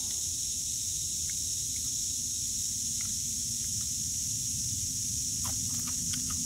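Steady high-pitched insect drone over a low rumbling background noise, with a few faint cracks as cooked rock crab shell is pulled apart by hand.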